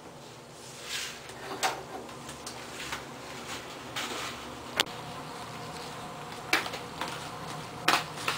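Quiet footsteps of slippers and flip-flops on a tiled floor, with a few sharp taps and clicks, and a faint steady hum that comes in about halfway.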